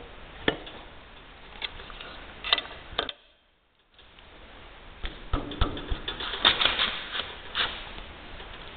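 Irregular metal clicks and taps of an Allen key turning a bolt in the steel plate of an Ammco brake-lathe cross feed extension. The clicks break off briefly about three seconds in, then come thicker and louder.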